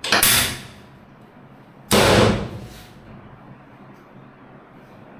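Two heavy thuds, one at the start and one about two seconds later, each dying away over most of a second: chiropractic adjustment thrusts landing on the treatment table.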